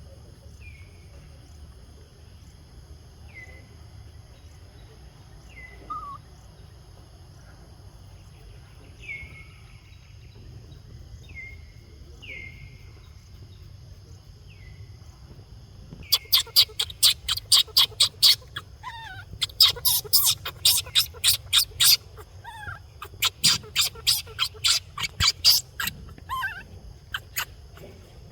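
Animal calls: short falling chirps every second or two, then about halfway through a fast run of loud, harsh calls, several a second.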